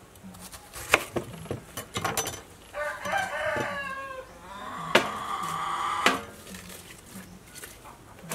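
A rooster crows once, a long call of about three seconds starting about three seconds in. Around it come sharp clicks and knocks from a knife cutting a cabbage on a wooden board and the leaves being pulled off.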